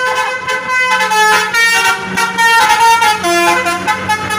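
A bus's Basuri telolet horn playing a tune: several horn tones sounding together and stepping from note to note every fraction of a second, loud.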